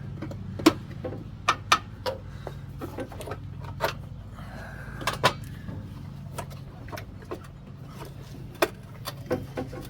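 Hand tools working on the rocker-cover bolts of a Pontiac engine: a dozen or so sharp, irregular metallic clicks and clinks, over a steady low hum.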